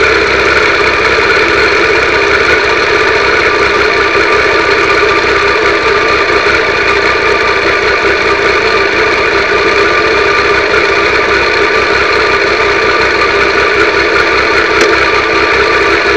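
Triumph 955i motorcycle's inline three-cylinder engine running steadily with no revving, picked up by a cheap keyfob camera strapped to the fog light, so the sound is harsh and poor.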